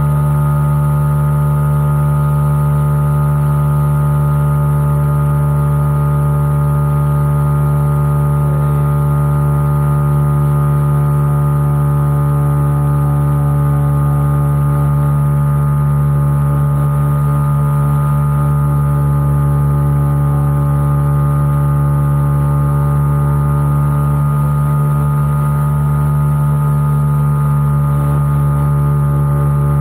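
The ASW 28-18E glider's sustainer ('turbo') engine running steadily at constant power, heard from inside the cockpit, with an unchanging pitch throughout.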